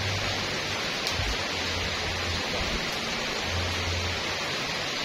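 Steady rain falling on trees and wet pavement, an even hiss, with a low rumble that comes and goes underneath.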